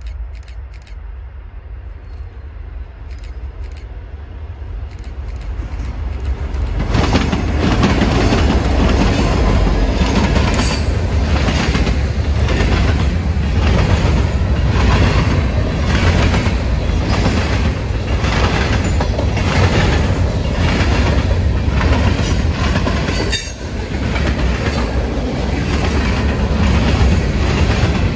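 Union Pacific freight train approaching and passing close by. It grows louder over the first several seconds as the diesel locomotives come up and go past. Then a long string of loaded covered hopper cars rolls by, the wheels clacking regularly over the rail joints above a steady rumble.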